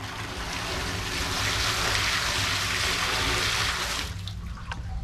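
Water poured onto an exposed septic pipe to rinse it clean, splashing steadily for about four seconds and then stopping.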